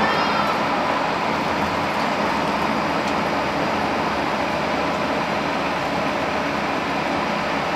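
Scania K230UB Omnilink single-deck bus heard from inside the saloon while cruising at speed: the 9-litre five-cylinder diesel runs steadily under road and tyre noise, with a steady whine on top. A short wavering tone sounds right at the start.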